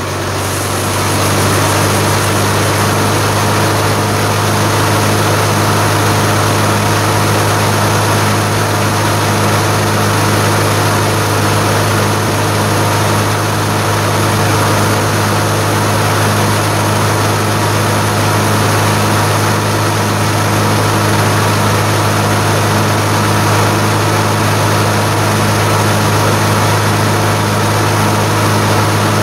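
Gleaner combine running steadily with a constant low drone while its unloading auger empties threshed oats into a wagon.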